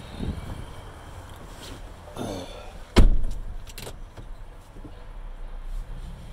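The driver's door of a Nissan Titan pickup is slammed shut about three seconds in, with a single heavy thud that is the loudest sound here. A short rattle comes just before it, and a few light clicks follow inside the closed cab.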